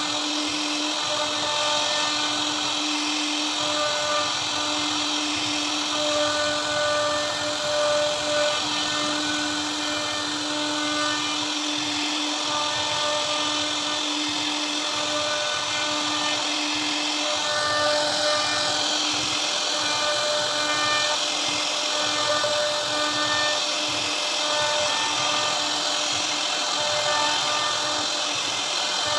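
CNC router spindle running steadily with a high whine while its bit carves a relief pattern into a wooden panel, over the hiss of the bit cutting wood. The upper tones of the whine swell and fade as the cut goes on.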